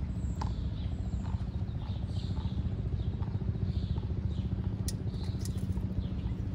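A steady low motor hum with a dense rumble, with faint high bird chirps over it and a couple of sharp clicks about five seconds in.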